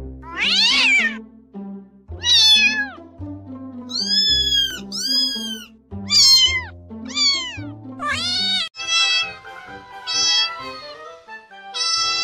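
Domestic cats meowing, about ten separate meows, most falling in pitch and a couple rising then falling, over background music with a steady low bass line.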